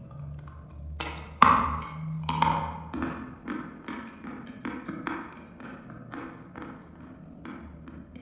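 Close-miked bite into a dry block of chalk topped with cream: a couple of sharp cracking snaps about a second in, then crunching as the chalk is chewed, at about two crunches a second, slowly getting softer.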